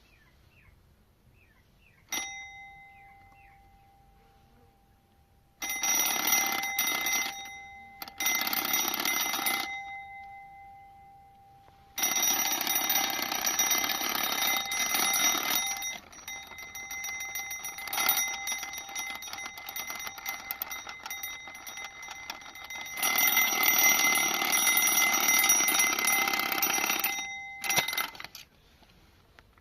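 Old alarm clock's bell ringing: a single ding about two seconds in, then loud ringing in bursts of a few seconds that stop and start, cutting off near the end with one last short ding.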